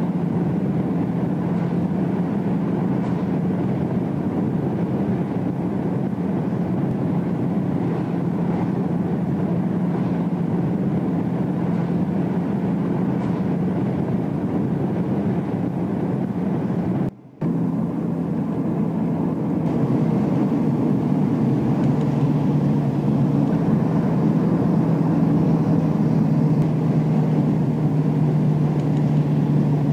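Engine and road noise inside a moving car's cabin: a steady drone with a low hum. The sound drops out for a moment about 17 seconds in, then comes back a little louder with the hum slightly lower.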